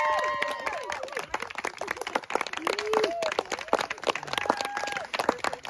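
A small group of people clapping steadily, with voices calling out during the first second and a few brief voices later.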